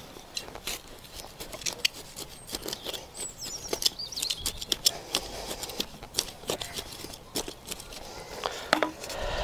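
Irregular crackling, clicks and rustles of hands working soil and handling young plants in a garden bed. A short wavering bird chirp, falling in pitch, about three seconds in.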